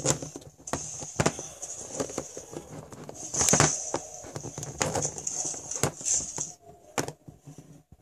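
Irregular clicks and knocks of plastic toy figures being handled close to the microphone, over a rustling hiss. The densest, loudest clatter comes about three and a half seconds in.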